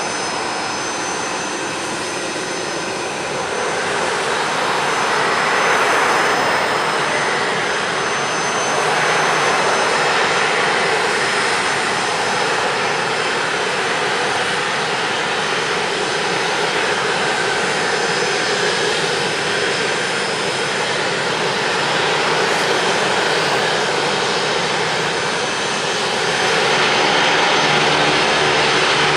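Twin turboprop engines of a USAF MC-12W (Beechcraft King Air 350ER) taxiing at low power, a steady whine with propeller noise. It grows louder about four seconds in and again near the end as the aircraft comes closer.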